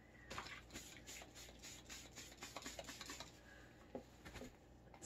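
Faint, irregular rustling and light ticks of shredded newspaper bedding being handled in a plastic worm bin while it is misted with a trigger spray bottle.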